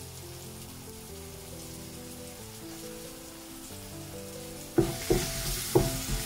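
Soft background music of held notes, then about five seconds in a sudden loud sizzle as yogurt is added to the hot oil and masala in the pan. Several sharp knocks and scrapes of a spoon follow as it is stirred in.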